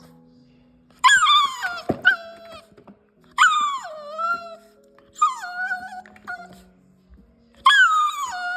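A puppy vocalising in four drawn-out, high-pitched calls that each slide down in pitch, the way an unhappy puppy tries to talk.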